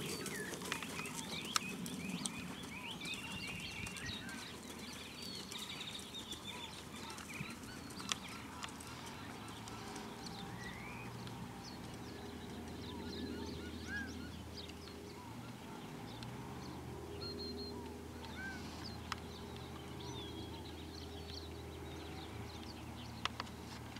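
Birds chirping and calling, many short calls scattered throughout, over a faint low steady hum.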